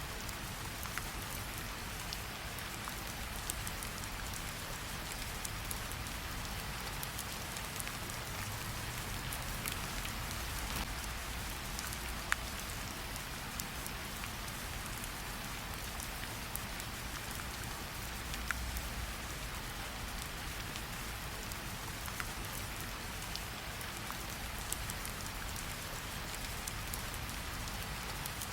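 Steady rain mixed with a crackling campfire: an even hiss of rain over a low rumble, with scattered sharp pops every few seconds.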